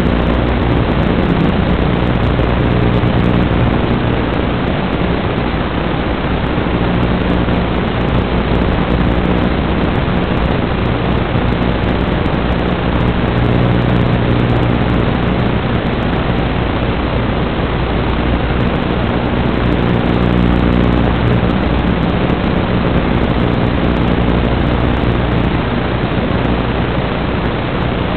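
Steady, loud static hiss from an FPV goggle DVR recording the analog video receiver's audio channel, with a faint low buzzing hum that fades in and out.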